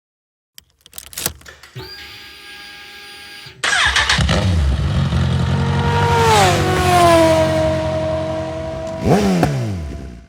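Motorcycle engine being started: a few clicks and a short steady whine, then the engine fires suddenly about three and a half seconds in and runs, its pitch dropping as it settles, with a quick rev blip near the end before the sound cuts off.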